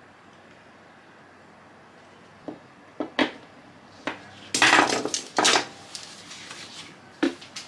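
Metal hand tools being handled and knocked on a workbench. After a quiet start come a few sharp clicks, then two louder clattering bursts about halfway through, and another click near the end.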